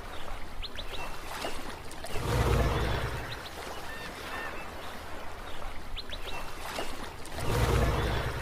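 Sea waves washing over a steady rush of water, with two big swells about five seconds apart, one about two seconds in and one near the end. Birds chirp briefly throughout.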